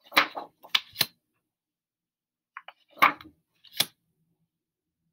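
Stiff flash cards being shuffled by hand: two short bursts of sliding and clacking, one at the start and one about three seconds in, as the front card is moved to the back of the stack.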